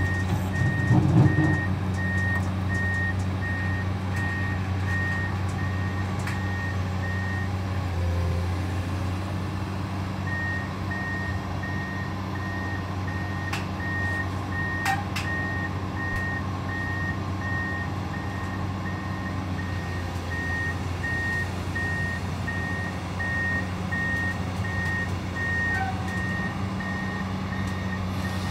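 Komatsu PC200 amphibious excavator's diesel engine running steadily while its travel alarm beeps about twice a second, with a pause of a few seconds about a quarter of the way in. A couple of sharp knocks near the middle.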